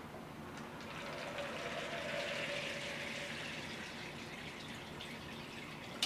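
Bentonite drilling mud poured into a tube of pea gravel and draining straight through it, splashing into a glass bowl below; the pouring swells and then eases off. The fluid runs right through the unsealed gravel: total lost circulation. A brief knock at the very end.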